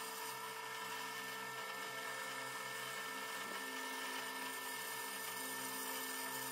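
JIB DP15VL floor drill press running with a steady electric-motor and belt-drive hum while its spindle speed is changed with the variable-speed lever. One of the tones in the hum shifts in pitch a little past halfway.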